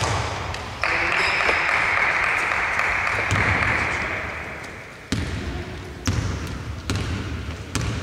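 Basketball being dribbled on the court, a series of short thuds mostly in the second half. About a second in, a loud rushing hiss starts suddenly and fades away over about four seconds.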